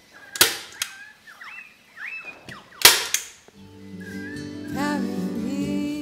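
Hand staple gun firing staples through paper into a wall: a loud snap about half a second in, a lighter one just after, and another loud snap near three seconds. Music with singing comes in over the last two seconds.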